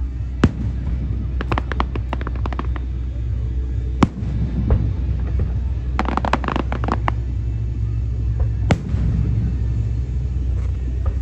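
Aerial fireworks display: shells bursting with sharp bangs about half a second, four seconds and nine seconds in. Between the bangs come two runs of rapid crackling from crackling stars, over a steady low rumble.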